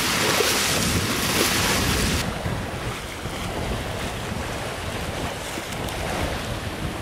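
Wind buffeting the microphone and water rushing along the hull of a sailboat under way. A bright hiss in the wind noise drops away suddenly about two seconds in, leaving a lower, rumbling rush.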